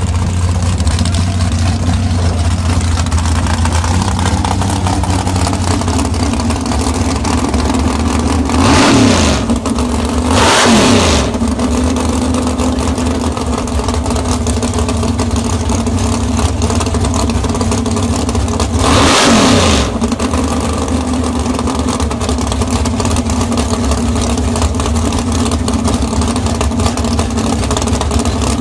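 A drag race car's engine idles steadily and loudly close by. Three short, louder surges fall in pitch, at about nine, eleven and nineteen seconds in.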